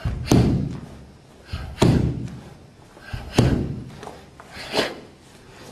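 Three heavy thumps about a second and a half apart, each with a lighter hit just before it, as a karateka working through a kata lands on the wooden dojo floor. The hall makes each thump ring briefly. A shorter, sharper sound comes near the end.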